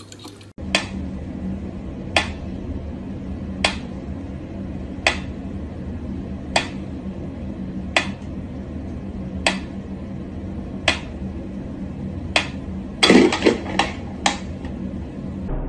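Sharp clicks or taps about once every second and a half over a steady low hum, with a quick flurry of louder knocks near the end.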